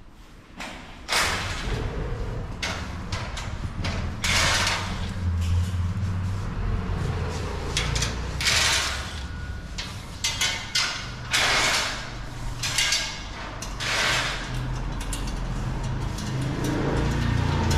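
Irregular scraping and sliding noises with occasional clunks from the steel shipping crate frame around a new motorcycle being handled, over a steady low rumble.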